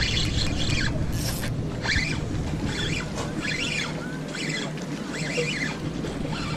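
Spinning reel being cranked to bring in a hooked fish that is pulling against the rod, over steady wind and water noise. Short high chirps come about once a second.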